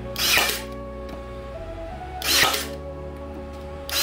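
Hart 20V cordless 18-gauge brad nailer firing three times, about two seconds apart, driving brads into wooden boards. Background music with sustained tones plays underneath.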